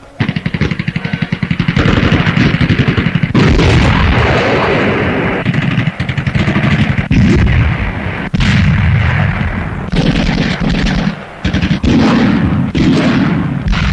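Battle sound on a 1941 newsreel soundtrack. A rattle of rapid machine-gun fire is followed, about three seconds in, by a loud blast, then a string of heavy gun or shell blasts every second or two.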